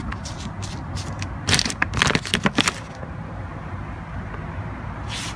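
Hands working the wiring and electrical connector inside an open car door: a quick run of crackling clicks about a second and a half in, lasting about a second, over a low steady rumble.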